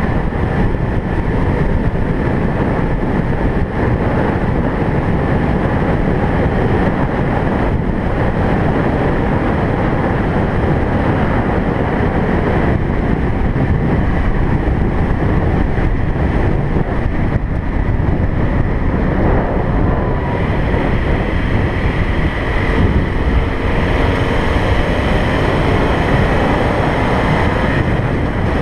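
Car driving along a road: steady road and wind noise, with a faint whine rising in pitch in the last several seconds.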